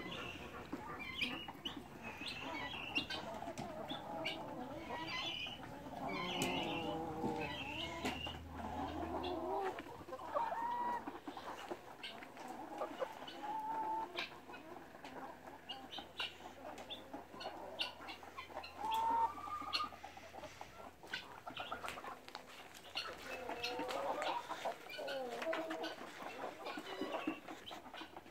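A flock of chickens clucking and calling, with many short overlapping calls and scattered sharp clicks.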